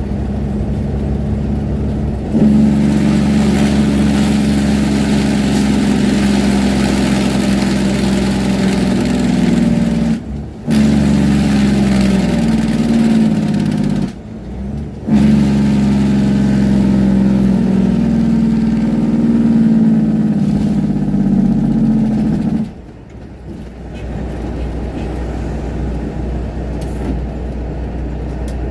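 Heavy truck's diesel engine running loudly with a deep, steady drone. It breaks off twice briefly, as during gear changes, then settles to quieter running about 23 seconds in.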